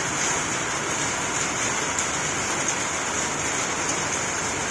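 Steady rain falling on a tin shed roof: an even, continuous hiss.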